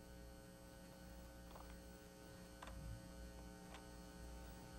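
Near silence: a low, steady electrical hum, with a few faint ticks.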